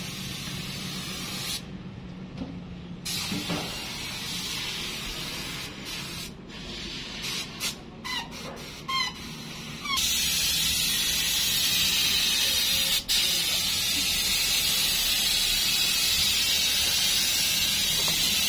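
Compressed-air spray gun hissing, at first in broken bursts with short gaps, then in one steady, louder hiss from about ten seconds in, cut briefly once a few seconds later.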